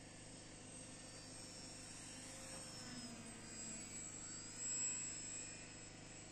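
Electric motor and propeller whine of a radio-controlled foam Hawker Hurricane model flying past. The high whine drops in pitch about four seconds in and is loudest around five seconds in.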